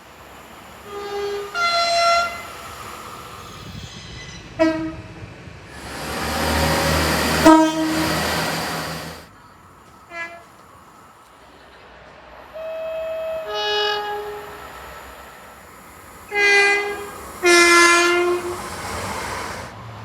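Train air horns sounding a series of short and longer blasts, each a chord of several tones. The longest blasts come past the middle and near the end. In the middle a train rushes past with a loud rumble for about three seconds.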